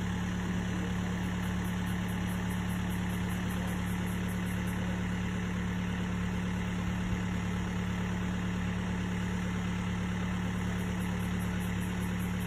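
Crane truck's engine running steadily at a constant idle, a low even hum, while the crane holds a pool shell.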